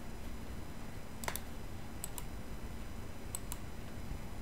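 A few scattered clicks from a computer keyboard and mouse, some in quick pairs, over a faint steady background hiss.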